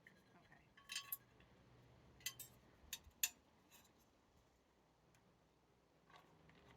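A few faint, sharp metallic clicks and clinks, the loudest about three seconds in, as scaffolding parts and wheels are handled, with near silence in between.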